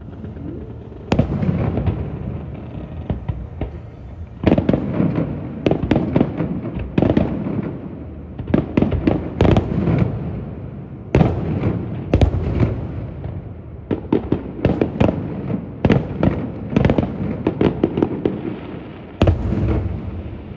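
Fireworks display: aerial shells bursting in rapid clusters, sharp blasts each followed by a rolling rumble, with louder bangs about a second in, near the middle and near the end.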